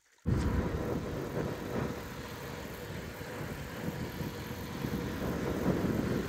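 Car on the move: steady road and wind noise with a low rumble, cutting in suddenly just after the start.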